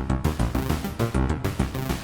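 Electronic music from analog synthesizers: an Arturia Minibrute 2S bassline under a Moog Mother-32 sequence and Moog DFAM percussive hits, pulsing quickly and steadily, with reverb.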